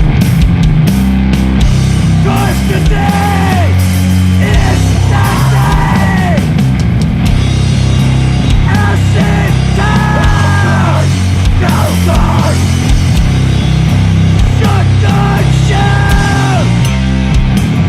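Sludge metal music, loud and bass-heavy, with pitched lines bending downward over it.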